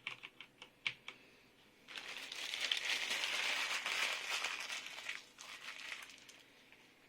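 A few light clicks and knocks, then about four seconds of crinkling as packaging is handled during an unboxing, fading out near the end.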